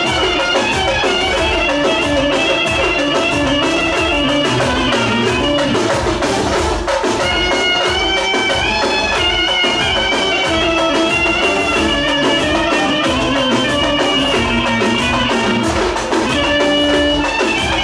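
Loud dance music with a steady drum beat under a high, stepping lead melody.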